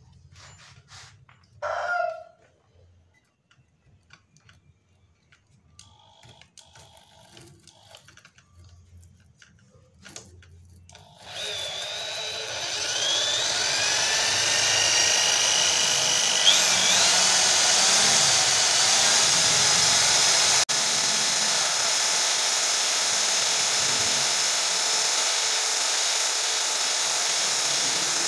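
A few small clicks and knocks, then about eleven seconds in an electric drill starts and runs steadily with a sandpaper-wrapped mandrel spinning inside a motor scooter's connecting-rod small end, honing the piston-pin bore that seized when the engine ran out of oil. Its pitch shifts as it gets up to speed.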